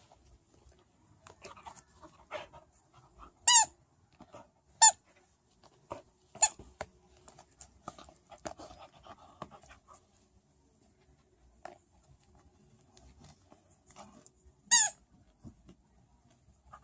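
Dog squeaking a squeaky plush hedgehog toy while biting and chewing it. Four loud short squeaks, the last near the end, with fainter squeaks and soft scuffling in between.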